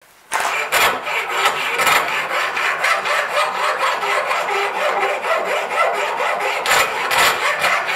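Hand file scraping back and forth along a steel knife blank, cutting the blade's bevels in repeated strokes that start about a third of a second in. The file's teeth are dulled, and it barely bites into the steel.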